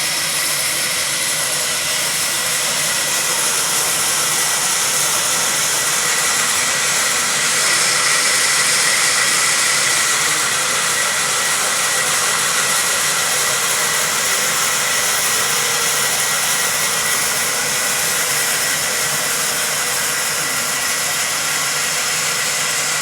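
Sawmill machinery running loud and steady, with a constant high whine over a broad hiss.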